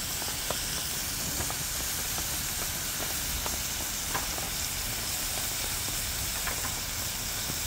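Vegetables frying in oil in a pan over an open wood fire, a steady sizzle with a few faint clicks scattered through it.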